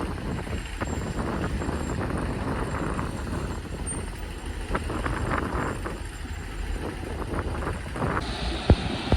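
Excavator's diesel engine running steadily under work, with scattered knocks and clanks from the machine and a sharp knock near the end.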